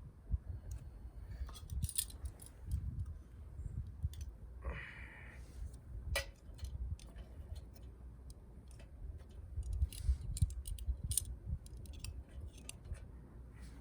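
Wood fire burning in a wood gas stove, crackling with sharp, irregular clicks and pops, over a low rumble of wind on the microphone.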